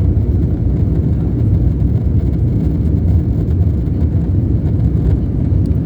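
Steady cabin rumble of an Embraer E190 in its climb after takeoff: engine and airflow noise from its two GE CF34-10E5 turbofans, heard inside the cabin.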